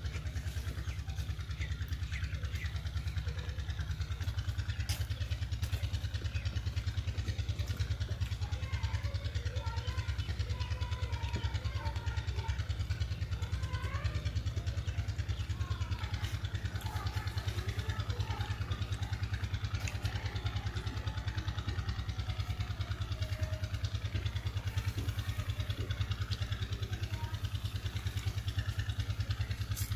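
A small engine running steadily, a low rumble with a fast, even throb.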